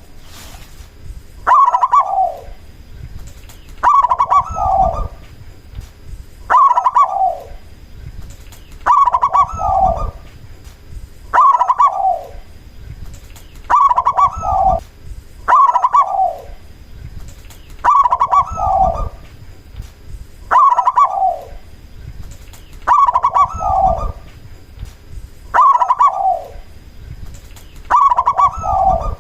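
Zebra dove (perkutut) singing its cooing song, the same short multi-note phrase repeated evenly about every two and a half seconds.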